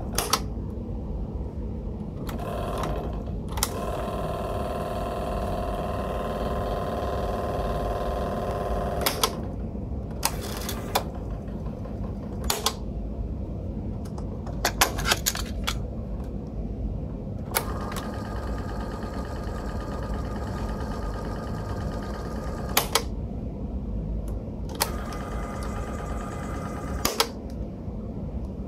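Tascam 414 MKII cassette portastudio's tape transport being worked: sharp clicks from the transport keys and mechanism, and the tape motor running with a steady whine in spells. The longest spells last about five seconds, one near the start and one past the middle, then a shorter one near the end. A low steady hum sits under it all.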